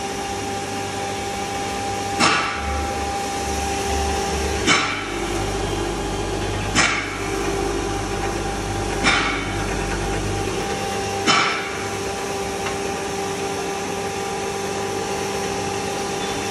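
Motor-driven stainless steel coriander grinder running with a steady hum and whir while coriander seed is fed into it. Five sharp knocks come about every two seconds.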